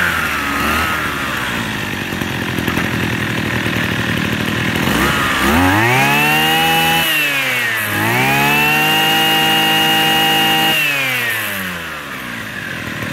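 Mitsubishi TL33 two-stroke brush cutter engine, badged Ryobi, idling. It is revved up about five seconds in, dips briefly near eight seconds, then is held at high revs for about three seconds before dropping back to idle.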